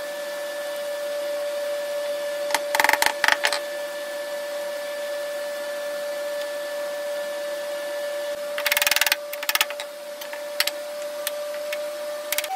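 Wooden pine blocks clattering and knocking as they are handled and set down on a workbench: a short burst about three seconds in and a longer rattle about nine seconds in, with a few single clicks after. A steady hum runs underneath.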